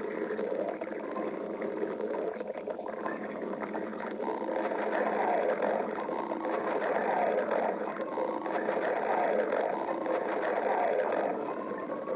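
A hungry person's stomach growling: a continuous gurgling rumble that swells louder from about four seconds in and eases near the end, with a few faint clicks in the first few seconds.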